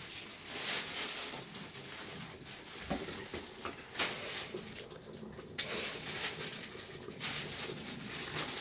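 Quiet kitchen handling sounds: a few light knocks and clicks of utensils or dishes over a steady hiss.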